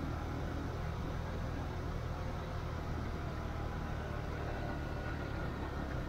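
A motor vehicle's engine running with a steady low hum.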